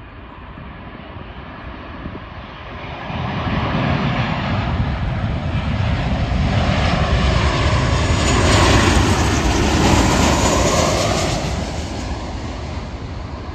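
Twin-engine jet airliner on final approach to land, its engine noise swelling from about three seconds in, loudest a little past the middle, then easing off as it descends toward the runway.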